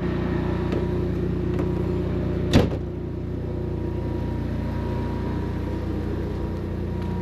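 Generator running with a steady hum, one sharp knock about two and a half seconds in.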